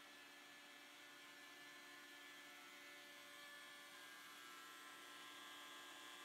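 Faint, steady whine of a DeWalt compact router spinning in the LowRider2 CNC as it cuts MDF, growing slightly louder toward the end.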